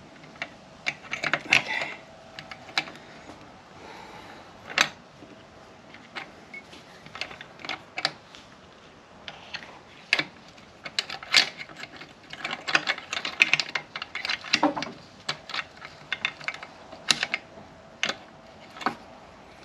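Irregular clicks and short runs of clinking from metal transmission parts being handled and fitted, as the Honda Prelude gearbox's shift lever assembly is set into its selector housing on the case.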